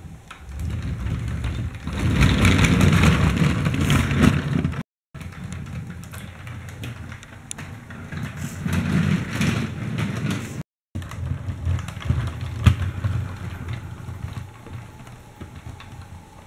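Plastic toy tram rolling across a hard floor, its wheels and drive rumbling and whirring. It comes in three short stretches, each swelling and fading away, broken by abrupt cuts about five and eleven seconds in.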